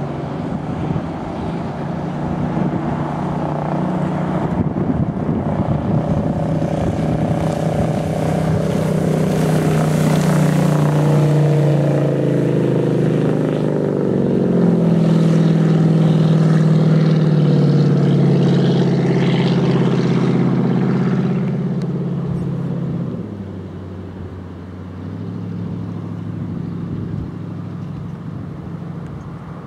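Engine of a Glen-L Barrelback wooden runabout running at speed, with the hiss of water off the hull. It grows louder as the boat nears. About three-quarters of the way through, its note drops in pitch and it gets quieter.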